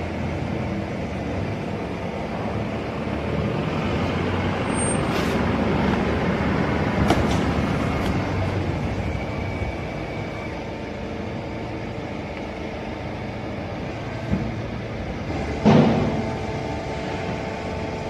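Hydraulic horizontal baling press running with a steady hum, with a few short knocks from the machinery. The loudest knock comes near the end.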